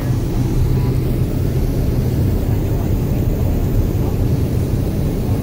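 Steady, loud, low rumble with a hiss over it inside the cabin of a Boeing 767-400ER airliner during boarding.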